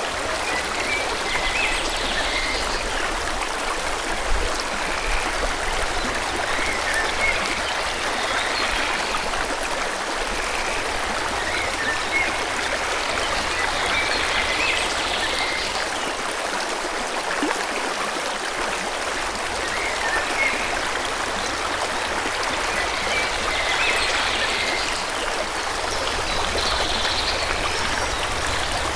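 Forest stream flowing steadily, with birds chirping now and then in short, high phrases over the water.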